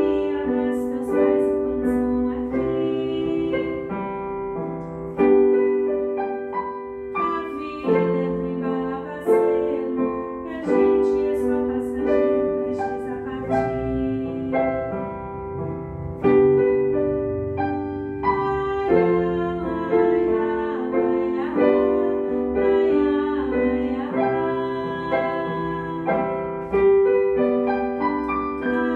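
Piano playing a slow ballad accompaniment in sustained chords, a new chord struck every second or two and left to ring and fade.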